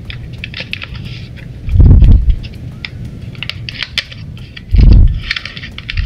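A small cardboard box being opened by hand: a steady crackling and clicking of cardboard and plastic packaging, with two dull, heavy thumps about two and five seconds in.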